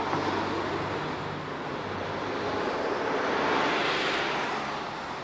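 Street traffic passing: a steady rush of vehicle noise with a low engine hum that swells to a peak about four seconds in and then fades.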